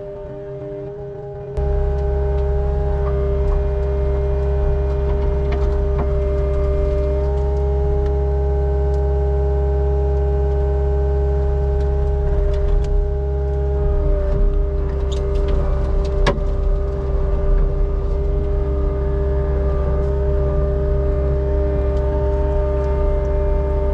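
CAT 279 skid steer's diesel engine running steadily under work, with a steady whine over the low rumble. The engine gets louder about a second and a half in, and a few knocks and scrapes come through in the middle.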